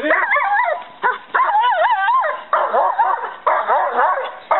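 German shepherd-type dog barking at a helper holding a bite sleeve: a rapid string of high, wavering barks and yelps, nearly two a second.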